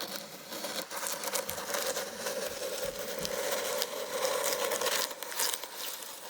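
Steel blade slicing along plastic packing tape on a cardboard shipping box: a continuous scratchy crinkling and tearing, with a steady tone under it that fades about five seconds in.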